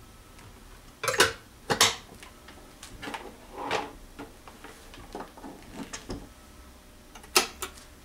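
Plastic clicks and knocks of a Tiger electric rice cooker being shut and switched on. The lid closes with a couple of clicks a second or two in, and a sharp double click near the end comes as the cooking switch is pressed down.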